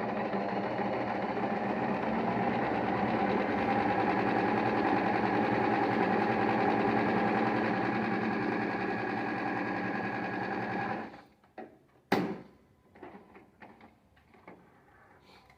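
Singer sewing machine stitching at a steady speed for about eleven seconds, then stopping abruptly, followed a second later by a sharp click and a few small handling sounds.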